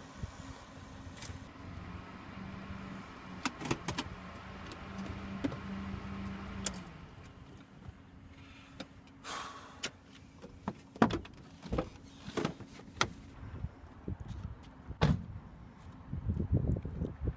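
Mitsubishi sedan's engine running with a steady low hum and a few light clicks; the hum eases off about seven seconds in and dies away. Then come sharp knocks and clicks, with a car door shutting about fifteen seconds in, and footsteps near the end.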